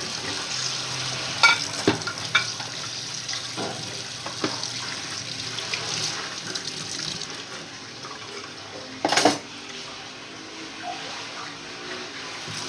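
Washing dishes by hand: water splashing in a sink, with plates and utensils clinking now and then and a louder clatter about nine seconds in.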